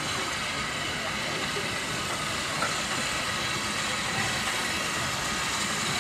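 Steam locomotive running slowly into a station: a steady rumble and hiss without distinct chuffs, with faint voices from people on the platform.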